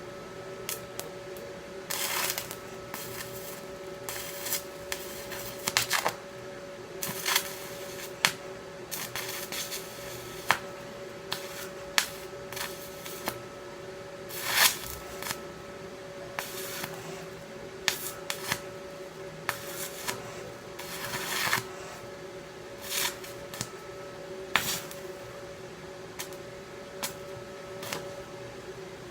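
Stick-welding arc crackling and popping irregularly as a cast steel rod is run to fill holes in thin chair metal, with a steady hum underneath.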